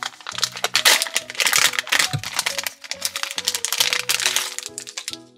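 Plastic blind-bag wrapper crinkling and tearing as it is ripped open by hand, over steady background music.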